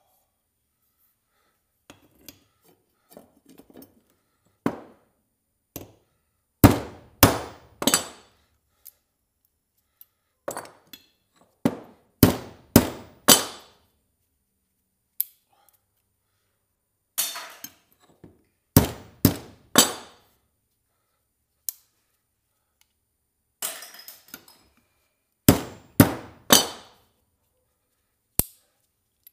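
Scrap metal clanking: sharp metallic knocks in groups of two or three about half a second apart, with a few seconds between groups.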